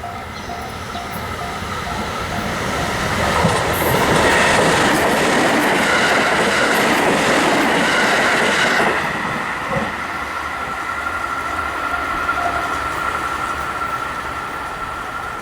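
A Japanese railway crossing bell clangs in a quick steady rhythm of about two to three strikes a second. A train then passes over the crossing: its wheel-on-rail rolling noise swells to its loudest from about four to nine seconds in, drowning out the bell, then eases off.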